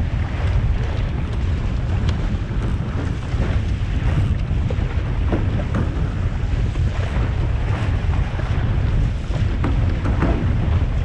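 Heavy wind buffeting on the microphone of a Musto Skiff sailing dinghy going at about 8 to 9 mph, over water rushing and splashing along the hull. The rumble is steady, with brief splashes breaking through now and then.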